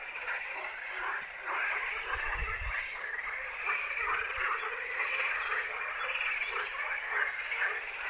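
A dense chorus of many frogs croaking at once, the calls overlapping without a break.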